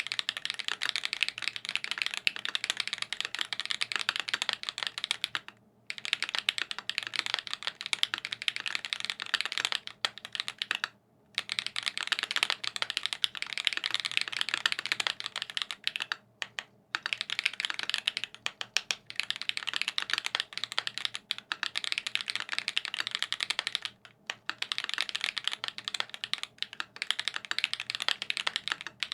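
Fast, continuous typing on a TX Classic TKL mechanical keyboard with lubed SWK X OUTVA Black tactile switches, a 5 mm PVC plate and GMK keycaps, a dense run of keystroke clicks broken by a few short pauses.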